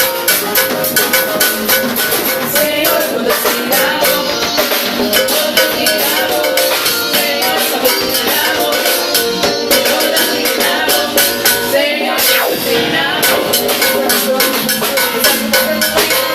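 Live band playing at a soundcheck, with drums and a busy, steady beat.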